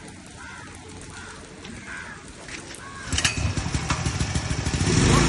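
Bajaj portable petrol generator being recoil-started: about three seconds in, a pull on the starter cord and the engine catches at once, then settles into a steady run near the end, still on choke.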